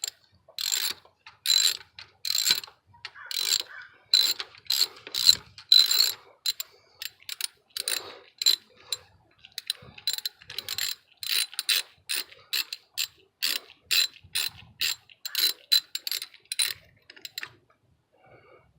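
Hand socket ratchet clicking in repeated short back-and-forth strokes, about two a second, as a spark plug is unscrewed with a 5/8 spark plug socket on a long extension. The clicking stops near the end.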